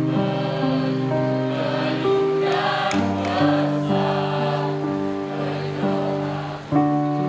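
Slow choral music: held choir chords that change every few seconds, each change coming in with a swell.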